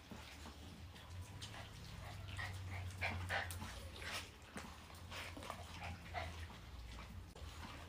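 Toy poodles whimpering with short high whines as they crowd in to be hand-fed, over scattered small clicks and taps.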